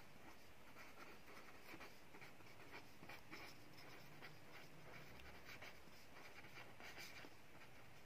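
Faint scratching of a pen writing on paper: a run of short strokes as letters are formed.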